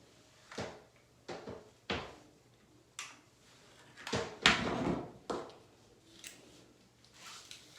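A series of knocks and clunks, like drawers, cupboard doors or objects being handled and set down. About ten irregular knocks, the loudest a longer clatter about halfway through.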